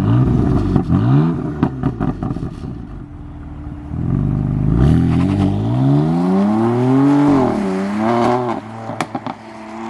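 BMW M4's twin-turbo inline-six on a Bootmod3 Stage 1 map, accelerating through the gears: the revs climb and drop at each shift, with one long pull from about four to seven seconds before settling. There are a few sharp cracks in the first three seconds.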